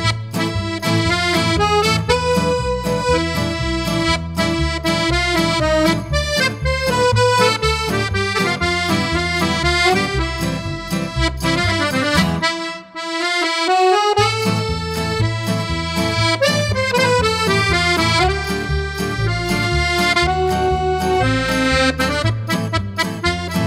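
Instrumental background music with a melody over a steady bass beat; a little past halfway the bass and beat drop out for about a second and a half while the melody slides upward, then the beat comes back.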